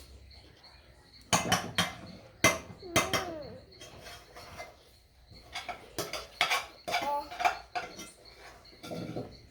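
Dishes and cutlery clattering: sharp clinks and knocks in two busy bursts, the first about a second in and the second from about five and a half seconds in.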